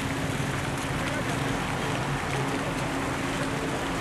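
Muddy floodwater rushing steadily over the ground, with a low steady hum underneath.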